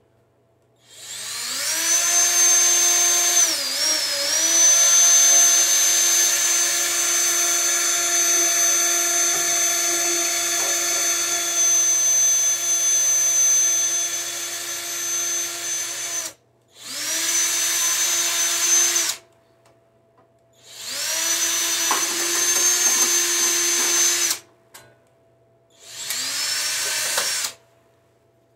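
Cordless drill boring holes in a lawn mower's engine cover: one long run of about fifteen seconds whose pitch dips briefly a few seconds in, then three shorter runs, each spinning up quickly to a steady whine.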